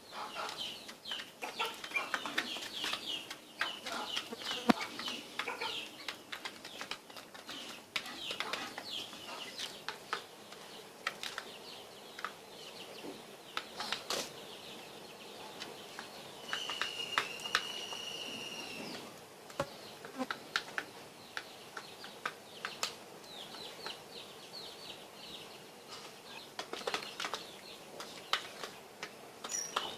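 Guinea fowl feeding: many quick pecking taps and clicks mixed with short high-pitched chirps. About seventeen seconds in comes one longer, drawn-out call lasting a couple of seconds.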